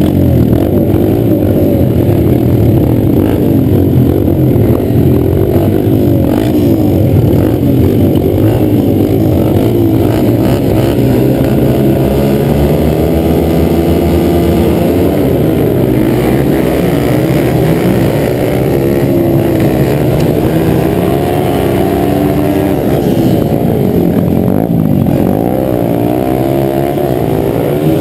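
Several dirt-track racing motorcycles' engines revving hard, heard close up from a helmet-mounted camera on one of the riders. The pitch rises and falls over and over as the bikes throttle on and off through the turns, with several engines overlapping.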